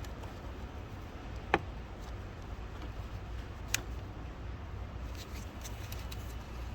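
Two sharp clicks about two seconds apart, the first the louder, then a few faint ticks, over a steady low rumble.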